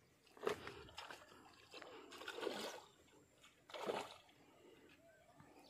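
Water splashing as a small fish is hauled out on a hand line: a few short splashes, the loudest about four seconds in.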